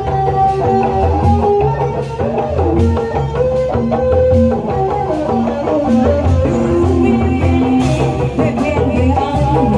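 Sundanese kuda renggong music: an instrumental passage with a melody line over a steady drum beat.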